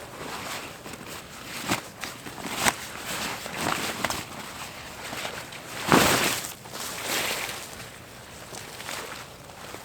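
Irregular rustling and crunching in forest leaf litter as someone moves about and handles gear, with a few sharp cracks, the loudest about six seconds in.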